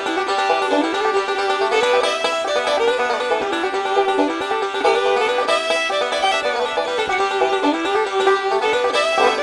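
Instrumental background music: a quick tune of plucked-string notes with little bass.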